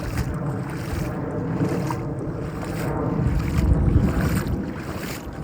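Footsteps wading through floodwater about five inches deep, sloshing irregularly, with wind buffeting the microphone.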